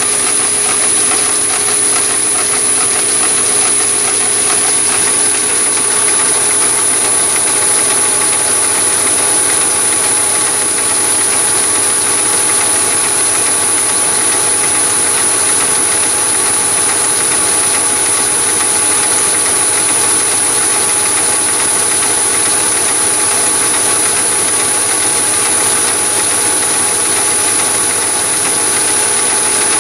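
Chinese mini lathe, driven by a three-phase motor on a VFD through a belt and cast-iron taper-lock pulleys, running steadily while taking a feed cut along the diameter of an aluminium ring. A steady high whine sits over the motor and belt hum. At the very end the pitch starts to fall as the spindle slows.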